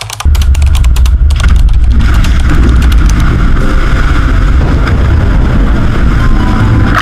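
Keyboard-typing clicks in the first second or so, then a loud, steady low rumble, like a vehicle or ship engine sound effect, that runs on under them.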